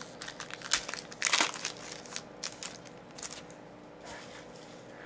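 Trading cards being handled and flipped through by hand: crinkling and sharp clicks of card stock, with one louder rustle about a second and a half in, growing quieter after about three seconds.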